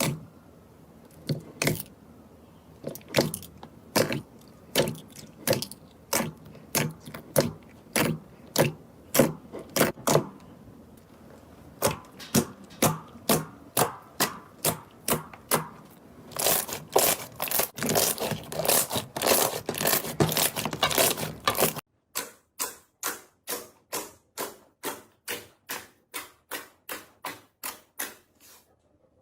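Slime being squeezed and poked by hand, making a long run of sharp clicks and pops, about two or three a second. The clicks thicken into a dense crackling for a few seconds past the middle, then go on evenly spaced over a quieter background until just before the end.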